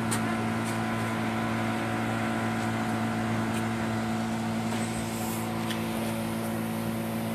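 Honda GX35 four-stroke brush cutter engine running steadily at a low, even speed, its pitch unchanging.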